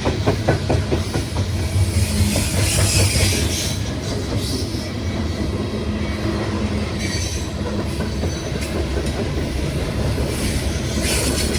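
Loaded coal hopper cars of a slow freight train rolling past: a steady low rumble with wheels clicking over rail joints, and high wheel squeal that comes and goes, strongest about two to four seconds in and again near the end.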